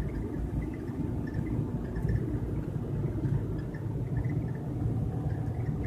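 Steady low rumble of a car heard from inside the cabin while it is moving.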